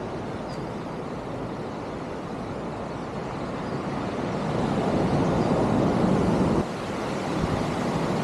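Sea surf and wind on the microphone, a steady rushing noise that swells about four seconds in and drops suddenly near the end.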